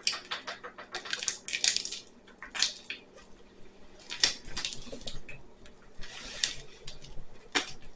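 Homemade glue slime being kneaded by hand: irregular wet squelches and sticky crackles as it pulls from the fingers. The slime is still really sticky, not yet fully mixed.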